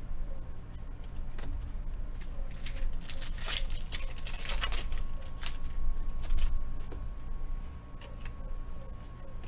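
Trading cards being handled and flipped through: soft, irregular clicks and rustles of card stock, over a steady low hum.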